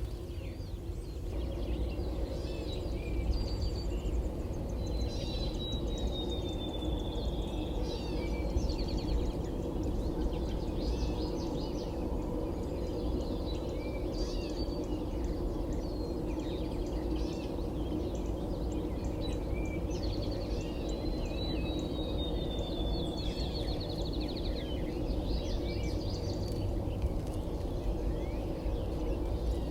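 Early-morning songbirds calling, with short chirps throughout and twice a song of a long falling whistle that breaks into a fast trill, over a steady low rumble.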